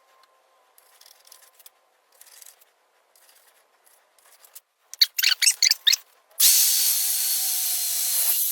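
Faint handling and rubbing on wood, then several quick loud scraping strokes, then a power tool starts about six and a half seconds in and runs steadily with a constant whine, cutting a channel into a 4x4 timber.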